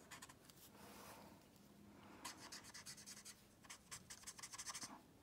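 Faint scratching of a felt-tip alcohol blending marker (Stampin' Blends) stroking over a small piece of paper as it colours in a flower centre, in quick strokes that come in two short spells, about two seconds in and again toward the end.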